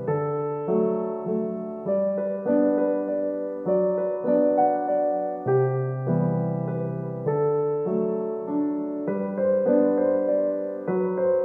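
Background piano music: a slow melody of struck notes, each fading, over longer low notes.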